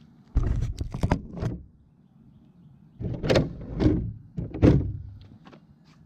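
Traxxas RC car's motor and drivetrain whirring in short bursts as it is blipped into motion on a concrete driveway, with tyre scrub on the concrete. There is a cluster of bursts about half a second in, then three more between about three and five seconds in.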